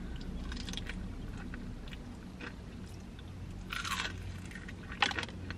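Biting into and chewing KFC extra crispy fried chicken, the crisp breading crunching close to the microphone. The loudest crunch comes about four seconds in, with a couple of sharp crackles near the end.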